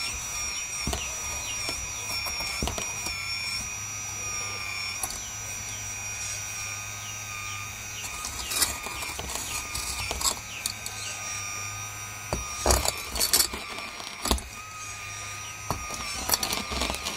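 Hydraulic RC excavator running, its pump giving a steady high whine while the boom and bucket work. From about eight seconds in, sharp knocks and clatter of rocks and dirt against the metal bucket come and go, loudest a little after twelve seconds.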